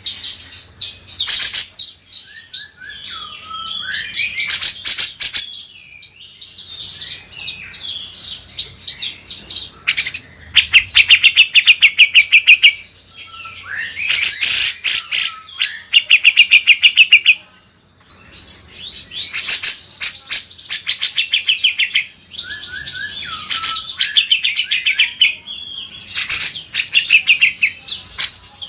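Cage songbirds, cucak jenggot and kinoi, singing loud, fast chattering trills and short whistled phrases in repeated bursts with brief pauses. This is a masteran recording used to teach song to other birds.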